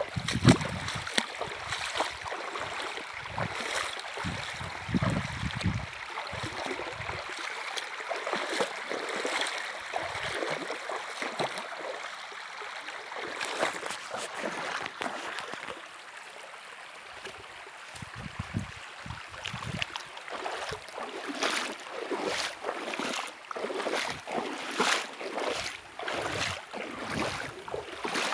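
River water running and splashing, with irregular lapping and sloshing spikes that come more often in the last third.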